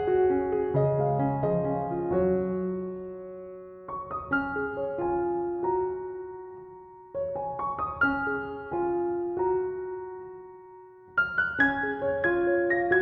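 Background piano music: gentle phrases of struck notes that ring and fade, a new phrase starting every three to four seconds.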